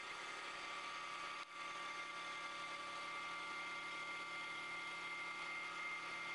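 CNC wood-turning lathe running steadily while cutting a spinning wooden baseball bat blank: a steady high whine over the hiss of wood being cut, with a brief drop about one and a half seconds in.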